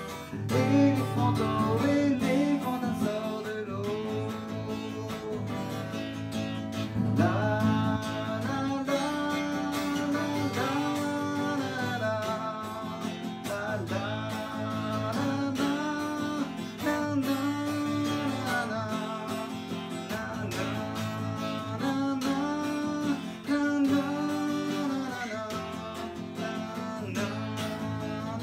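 Acoustic guitar, capo on the neck, strummed in a steady rhythm while a man sings a French children's song along with it.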